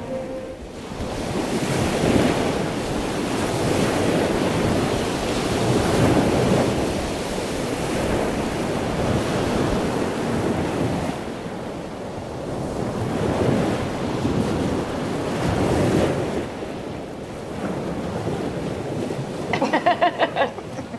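Wind and choppy sea waves: a loud, steady rushing that swells and falls every few seconds. Near the end, a short run of quick pulsing tones.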